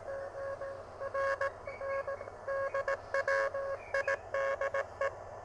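Morse code from the pocket uSDX-clone HF transceiver's speaker: a single steady tone keyed on and off in quick dots and dashes, over faint receiver hiss.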